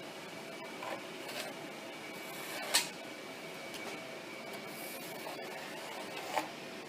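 Faint steady hum and hiss with a few short, light knocks, the sharpest about three seconds in and another near the end.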